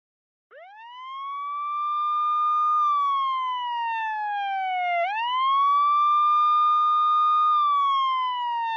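A wailing siren in two slow cycles, each one rising quickly, holding high for a moment, then sliding down. It starts out of dead silence about half a second in, clean with no background noise, like a sound effect edited into the video.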